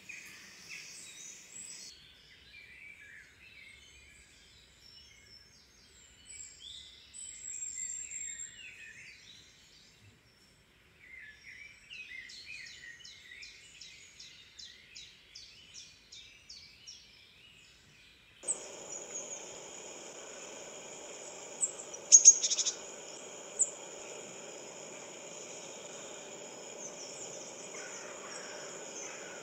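Small songbirds chirping and trilling, with a run of rapid repeated notes: the birdsong of a bird video made for cats to watch. About two-thirds of the way in it cuts suddenly to a steady hiss-like outdoor ambience with a high steady drone, broken by a few sharp loud calls.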